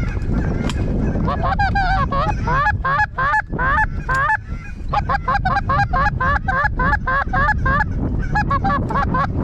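Geese honking and clucking in a rapid, steady run of short calls, about three a second, with a brief pause about halfway, over low wind noise on the microphone.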